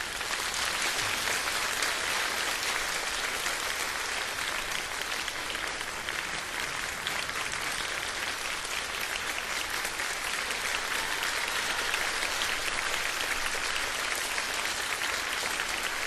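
Audience applauding steadily, dense clapping with no music.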